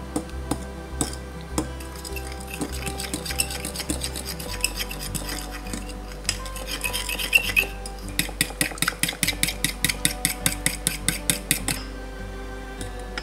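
Metal fork whisking a wet pumpkin pie filling in a ceramic bowl, clinking and scraping against the sides. The strokes are irregular at first, then speed up into a fast, even beat of about six clinks a second before stopping shortly before the end.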